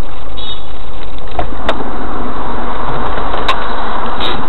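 Car driving noise picked up by a dashcam microphone, loud and distorted, with noise swelling partway through and a few sharp clicks.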